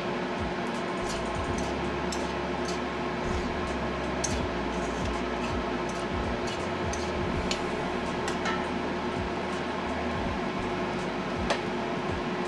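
A metal spatula scraping and clinking against a steel wok as fried rice is stirred, in scattered irregular taps, with one sharper knock near the end. Underneath runs a steady hiss with a constant hum.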